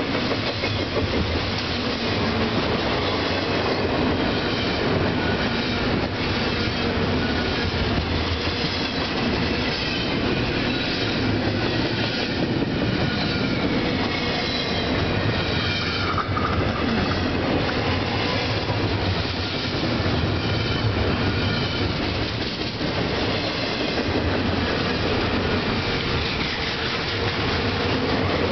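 Double-stack intermodal freight train's loaded well cars rolling past close by: a steady rumble of steel wheels on rail, clicking as the trucks pass over rail joints, and high thin wheel squeal coming and going.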